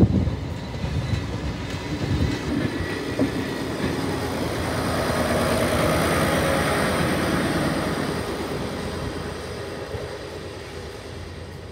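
Diesel railcar train passing close by: its running noise on the rails swells to a peak about six seconds in as the end car goes past, then fades steadily as the train pulls away.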